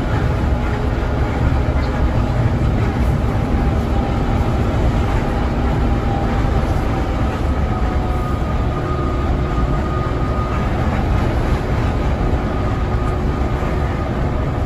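Steady drone of an intercity coach bus cruising at highway speed, heard from inside the cabin: engine and road noise heavy in the low end, with faint steady whines over it.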